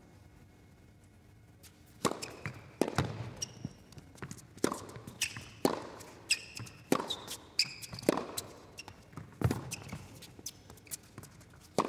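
Tennis rally on an indoor hard court: after a quiet start, a serve about two seconds in and then racket strikes and ball bounces trading back and forth, with short squeaks of shoes on the court between them.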